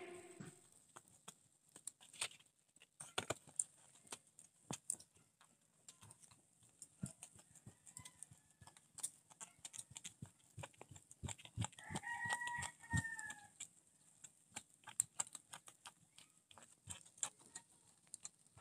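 Faint crackling and popping from pork chops grilling over glowing charcoal. A rooster crows once about twelve seconds in, with a fainter call a few seconds before it.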